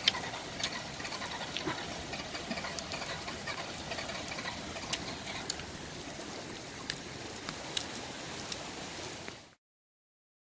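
Flash-flood water rushing across a wadi bed, a steady hiss with scattered sharp ticks. It cuts to silence about a second before the end.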